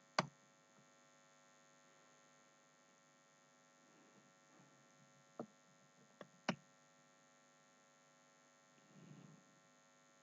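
Near silence: a faint steady electrical hum, with a few isolated clicks from working the computer, one near the start and three more between about five and a half and six and a half seconds in.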